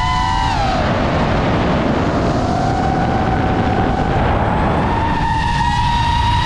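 DJI FPV drone's motors and propellers whining in flight. The pitch drops just after the start, holds, and rises again about five seconds in as motor speed changes, over a heavy low rumble.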